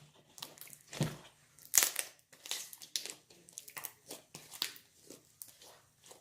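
Slime with jelly cubes in it being squished and mixed by hand with a piece of clay: irregular wet crackles and pops, the loudest about two seconds in.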